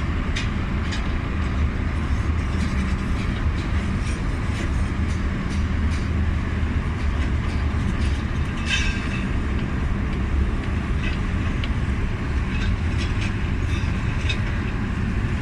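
Steady low rumble like the running noise of a moving vehicle, with scattered light clicks and taps over it.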